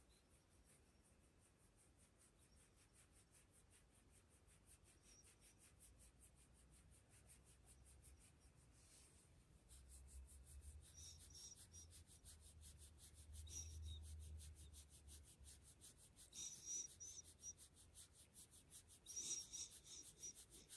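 Very faint rubbing and brushing against a Shiba Inu's fur and the bedding close to the microphone, growing slowly louder, with short soft hissy brushes in the second half.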